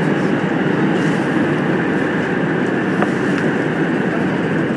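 Korail 351000-series subway train running steadily through a tunnel, heard from inside the car: a continuous rumble and hiss of wheels on rail.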